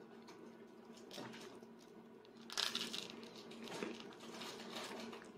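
A young child biting into a piece of crusty baguette dipped in stew: a short crunch about two and a half seconds in, against quiet room tone.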